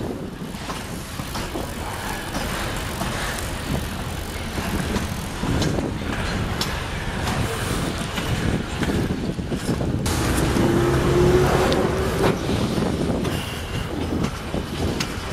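Freight train of hopper wagons rolling past with a steady rumble and scattered clanks, heard from a moving bicycle with wind on the microphone. A brief, slightly rising whine sounds about ten seconds in.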